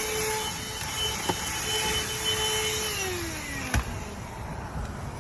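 Worx cordless handheld car vacuum running with a steady motor hum and high whine over the rush of air. About three seconds in it is switched off and the motor winds down, its pitch falling. A sharp click comes shortly after.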